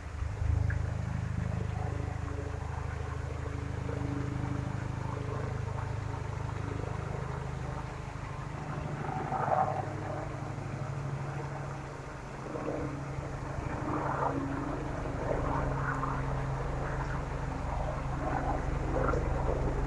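A steady, low engine drone made of a few held tones, over the rushing and splashing of small waterfalls.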